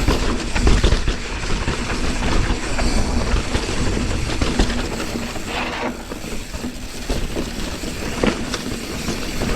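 Mountain bike rattling down a rough, rocky trail: tyres on dirt and rock, with the chain and frame clattering in a constant stream of small knocks over a heavy low rumble.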